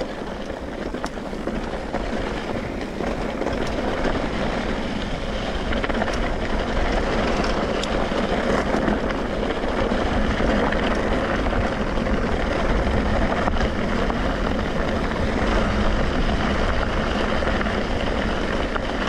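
Vehicle engine running steadily with wind rushing over the microphone, getting louder over the first few seconds and then holding steady.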